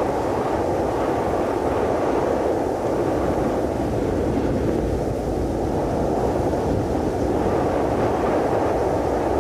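Cold wind sound effect: a steady rushing wind, low and dull, with a deep rumble underneath.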